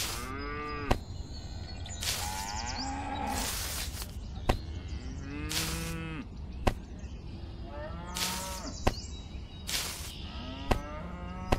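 Cattle mooing, about five separate calls, each rising then falling in pitch, with a few sharp clicks in between.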